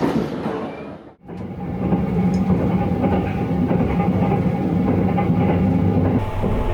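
Sunrise Izumo sleeper train (285 series electric train) running, a steady rumbling hum with a faint constant whine. The sound dips out briefly about a second in and turns to a deeper drone near the end.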